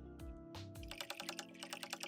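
Light instrumental background music. About a second in, a fast run of dry clicks, roughly a dozen a second, comes in over it.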